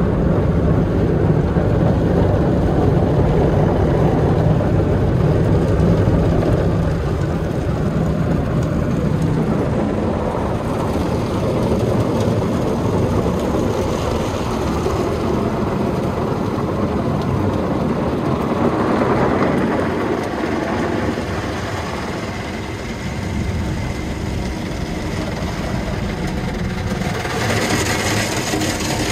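Blue and black foam brushes of a PDQ ProTouch Icon soft-touch car wash scrubbing over an SUV, with water spraying and the wash machine running steadily, heard from inside the vehicle's cabin. A brighter hiss of spray grows louder near the end.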